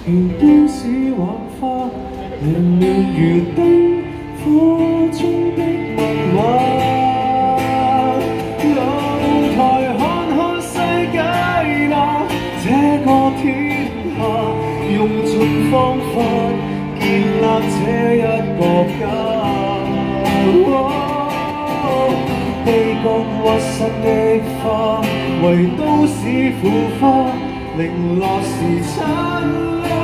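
Live Cantonese pop song: acoustic guitar accompaniment with a male voice singing into a microphone, played through a small amplifier.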